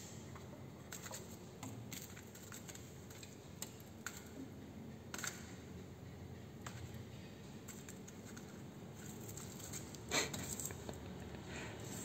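Scattered light taps, scrapes and rustles of a kitten batting and grabbing at a string-hung ball on a tiled floor under a wooden chair, with one louder knock about ten seconds in.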